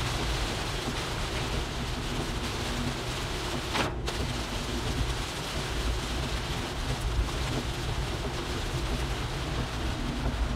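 Rain on a moving car's windscreen and body with tyres hissing on a wet road over a steady low road rumble, heard from inside the cabin. The noise breaks off briefly about four seconds in.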